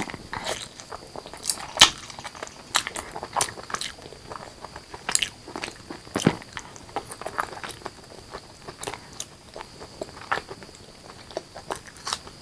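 Close-miked eating of chicken curry with rice: chewing and biting, heard as an irregular run of sharp wet clicks and crunches.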